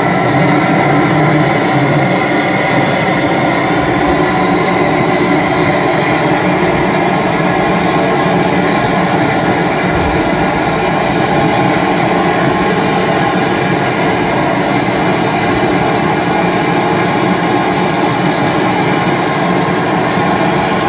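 Large antique Fairbanks-Morse single-cylinder diesel engine running steadily and loudly.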